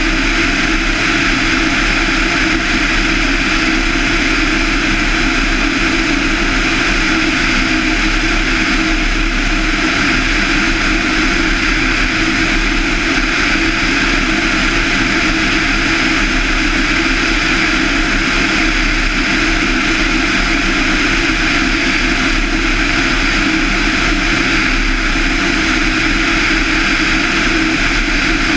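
A Van's RV-7's 200 hp Lycoming IO-360 four-cylinder engine and two-blade propeller running steadily in cruise flight, with a steady rush of air over the airframe.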